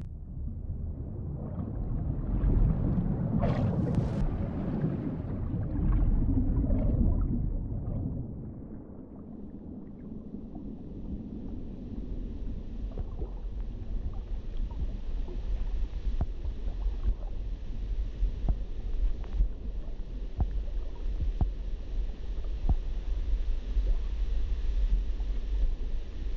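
Underwater sound: a low churning rumble with scattered short bubble pops, louder and busier for the first eight seconds or so, then settling into a steady hiss-like wash.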